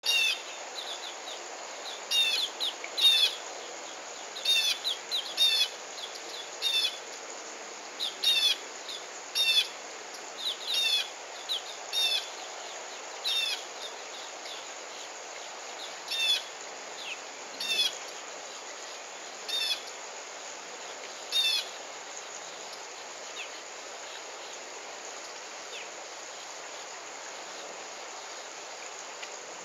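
A bird calling outdoors: short, high chirps that sweep downward in pitch, repeated every second or two and stopping about three quarters of the way through. Behind them is a steady outdoor hiss of insects and ambience.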